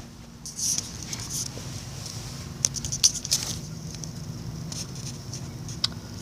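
Light rustling and scraping with scattered sharp clicks, in a few clusters, over a faint steady low hum.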